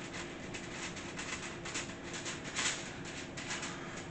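Irregular rustling and scraping, several short scuffs a second, as cookie dough is worked and pressed into a baking pan by hand, over a faint steady hum.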